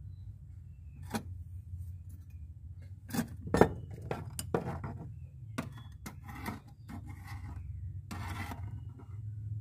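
Loose sheet-steel patch plate clinking and scraping against the rusted car floor pan as it is pressed into place by hand, with a handful of sharp metallic taps and short rubs, over a steady low hum.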